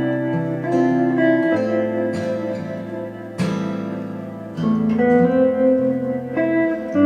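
Instrumental music led by acoustic guitar, with chords and notes that change every second or so and a strum about three and a half seconds in.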